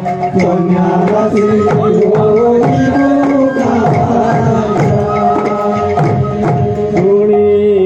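Kirtan music with no singing: a melody of held, pitched notes over a steady rhythm of hand-drum strokes and bright small-cymbal clashes.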